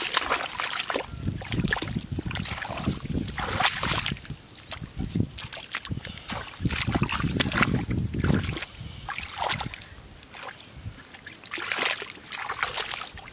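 Hands splashing and scooping in shallow muddy water while grabbing at an eel, in irregular splashes and sloshes.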